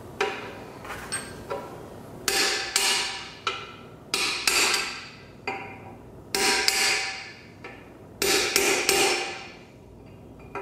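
Hammer striking metal, driving a bearing into a transfer case: a few light taps, then four clusters of two or three hard blows, each ringing briefly.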